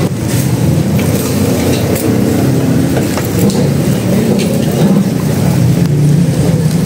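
Steady low rumble of street traffic, with a few light clinks of utensils.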